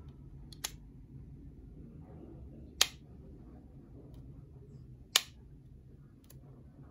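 Plastic lid of an AirPods Pro charging case snapping shut with its magnetic catch: two loud, sharp clicks about two and a half seconds apart, with a fainter click less than a second in as an earbud seats in the case.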